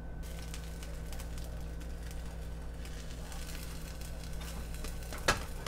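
An egg omelette frying softly in a nonstick pan, with light scraping and small taps as a silicone spatula folds it over, and one sharp tap on the pan near the end. A steady low hum runs underneath.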